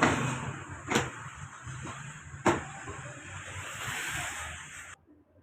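A steady mechanical hum and hiss with three sharp knocks, all cutting off abruptly about five seconds in.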